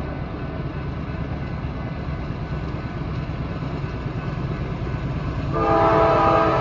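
Approaching diesel freight locomotive: a steady low engine rumble, then about five seconds in its air horn starts blowing loudly, a chord of several notes held to the end.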